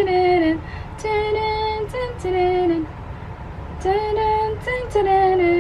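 A woman singing a short tune on her own, in held notes with short gaps and falling endings to the phrases: a do-it-yourself stand-in for background music.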